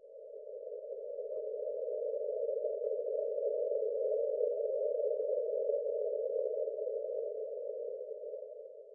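Paced-breathing guide sound: a narrow, tone-like hiss that swells for about four seconds and then slowly fades, one long breath cue. It is pitched a little higher than the cues on either side of it.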